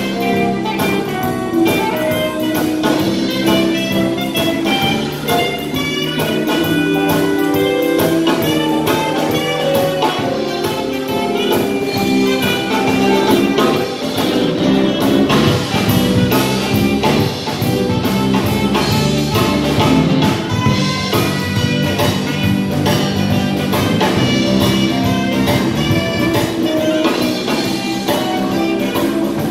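A jazz band playing live: a saxophone section over electric guitars, keyboard and drum kit, with steady held notes throughout.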